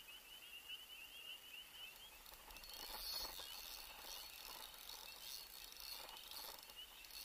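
Quiet outdoor ambience with a faint, rapid series of high bird chirps over the first second or so.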